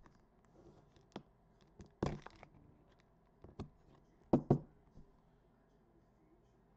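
Clicks and light knocks of a trading card being slid into a rigid clear plastic card holder and handled. A louder knock comes about two seconds in, and a quick pair of knocks follows at about four and a half seconds.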